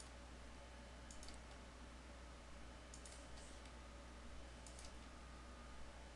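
Faint computer mouse clicks, about four, each a quick press-and-release double click, as points are placed one by one; a steady low hum sits underneath.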